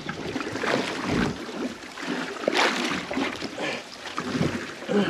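Wind on the microphone and water lapping at the hull of a small boat drifting offshore, rising and falling in gusts, with a few short knocks and rustles from handling the rod.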